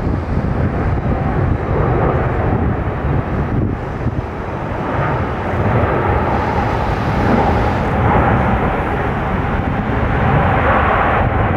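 Airbus A380's four jet engines running loudly as the airliner rolls along the runway, a steady roar with a humming tone that swells about halfway through and again near the end.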